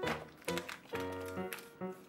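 Background music: a light tune of held notes over a bass line that moves about twice a second, with soft percussion taps.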